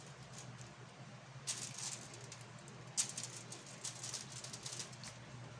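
Aluminium foil crinkling under hands that are spreading diced tomatoes over a fish on a foil-lined baking tray. It comes in two short rustling bursts, about a second and a half in and again around three seconds in.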